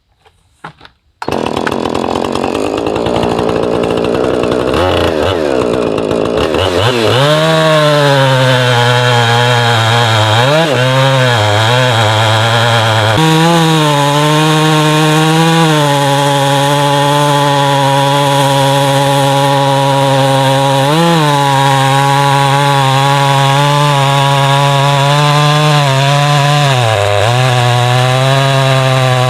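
A small gasoline engine driving a saw while milling timber. It starts abruptly about a second in and runs at high speed, its pitch sagging and recovering several times as it works under load.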